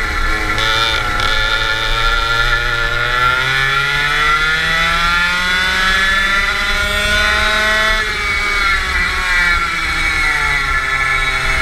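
Go-kart engine heard from the driver's seat at racing pace. The revs dip briefly at the start, climb steadily for about four seconds along a straight, drop suddenly as the throttle is lifted for a corner, then build again.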